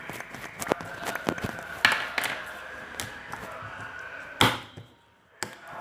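A run of sharp knocks and impacts over a busy background, with one loud hit about four and a half seconds in followed by a brief silence.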